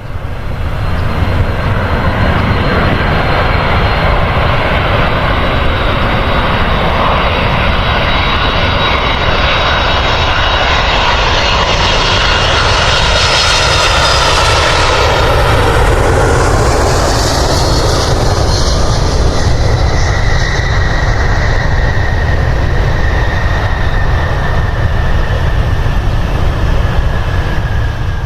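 Jet airliner engines, a loud steady rumble and roar as the aircraft passes close by. About halfway through, the engine whine glides down in pitch as it goes past.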